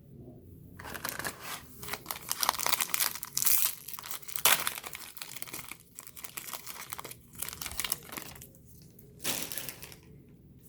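Foil wrapper of a trading card pack being torn open and crinkled: a dense crackling that starts about a second in and dies away shortly before the end.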